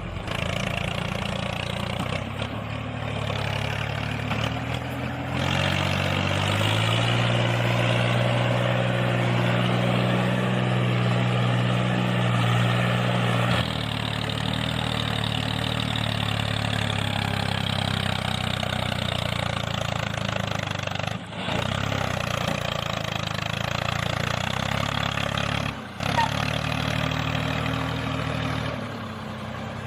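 Steady engine running, idling-like, in several stretches that change abruptly in pitch and level, as if cut together.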